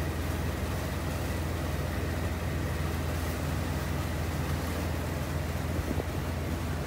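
Inboard or outboard engine of a Weekend 820 motor cruiser running steadily under way: a constant low hum with an even hiss above it.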